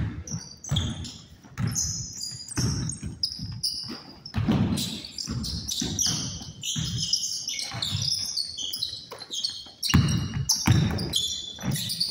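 Basketball bouncing on a gym court: repeated, irregular thuds about once or twice a second as the ball is dribbled up the floor.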